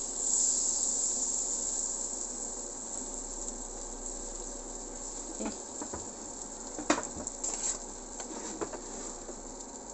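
Butter sizzling as it melts and foams in a hot nonstick frying pan: a steady high hiss that eases off gradually, with a few light clicks about halfway through.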